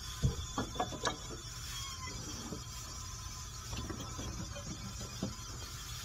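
Several short knocks and clatters of objects being handled, four in quick succession in the first second and a few more near the end, over a steady low hum.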